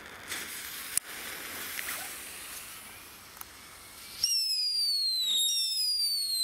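Lesli Luftpfeifer ground whistlers going off: a fuse hissing and sputtering for about four seconds, then two loud whistles starting about a second apart, each a steadily falling tone.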